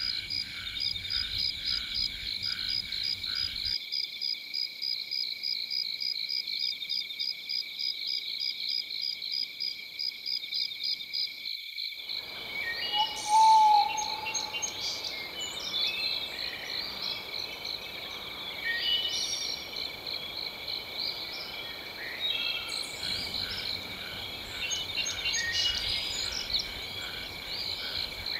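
Nature soundscape of frogs calling in a rapid, evenly pulsed chorus over a steady high insect drone; about twelve seconds in the mix changes abruptly to scattered bird chirps and calls, with one short, loud whistle soon after.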